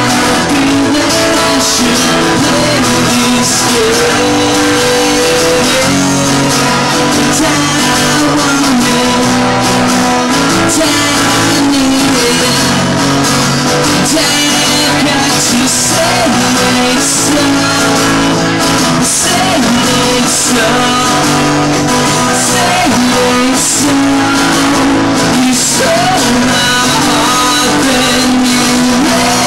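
A man singing live while strumming an acoustic guitar, a solo song played without a break.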